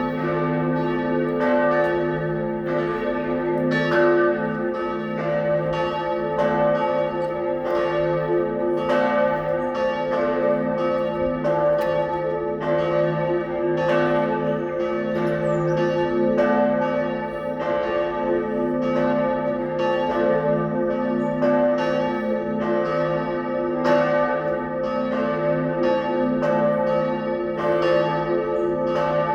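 Church bells of St. Bonifatius Church, Wiesbaden, pealing together: several bells struck in quick, irregular succession, about two strikes a second, their tones ringing on and overlapping.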